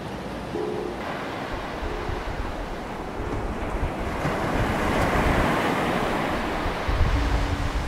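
Sea surf breaking and washing up a sandy beach, swelling to a peak about halfway through, with wind buffeting the microphone, strongest near the end.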